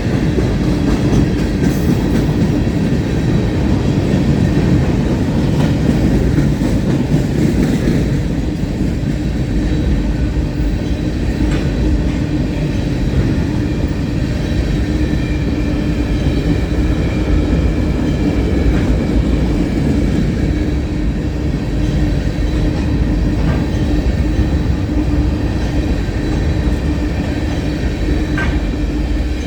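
Freight train's cars rolling past close by: a steady, loud rumble of steel wheels on rail with clickety-clack over the rail joints and a faint steady tone under it.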